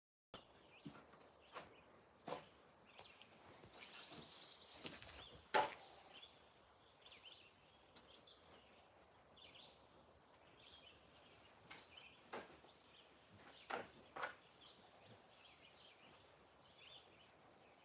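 Quiet outdoor ambience: a faint steady hiss with a few brief, high bird chirps and scattered soft clicks or taps, the loudest about five and a half seconds in.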